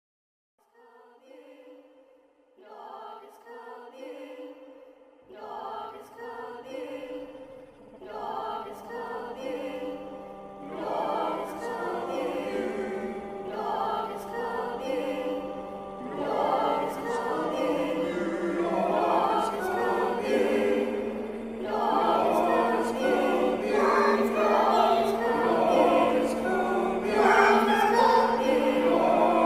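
Choral music that starts softly and swells steadily louder, with held low notes entering about five seconds in under pulsing sung phrases.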